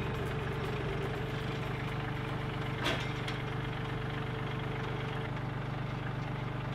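Compact tractor engine idling steadily, with a single sharp knock about three seconds in.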